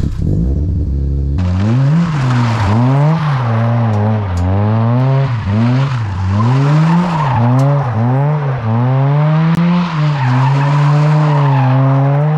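Mazda RX-7 FC's rotary engine revving up and falling back over and over, roughly once a second, with tires squealing as the car is drifted.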